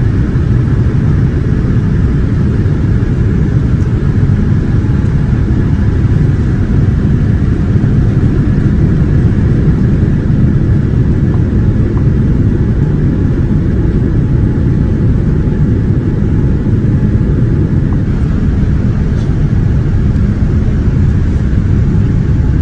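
Steady cabin noise inside a Boeing 787-9 airliner in flight: a constant deep rumble of engines and airflow that does not change.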